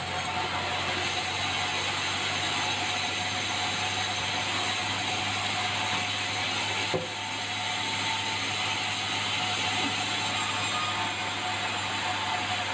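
Sawmill machinery running steadily, a dense, even mechanical noise, with one brief knock about seven seconds in.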